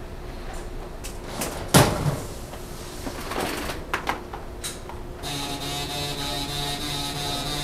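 Hard plastic pistol case and foam insert being handled: scattered clicks and knocks, the loudest a sharp knock about two seconds in. About five seconds in, a steady hum with several held tones and a fast regular ticking starts and keeps going.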